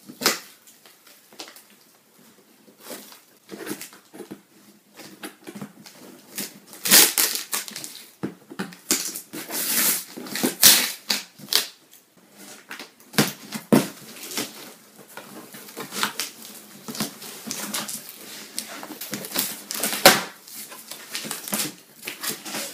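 Scissors cutting through a cardboard box, the cardboard crackling and scraping in irregular bursts as the blades work through it.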